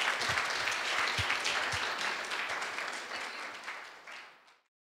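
Audience applauding at the end of a talk, a dense spatter of clapping that fades and then cuts off near the end.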